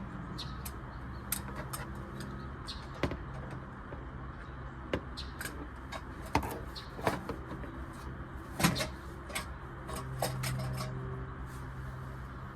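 Irregular clicks and knocks of tools and parts being handled during work on the car, with the loudest knock about two-thirds of the way through, over a steady low hum.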